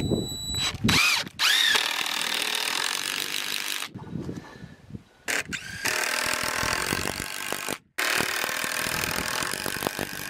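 Cordless driver sinking 10-gauge, 4-inch structural wood screws through a timber beam into a post. It runs in about three bursts of a couple of seconds each, with short pauses between screws.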